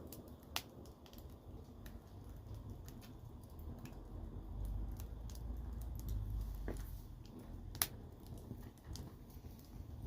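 Wood fire crackling with scattered sharp pops, a louder pop about half a second in and another near the end, over a low steady rumble.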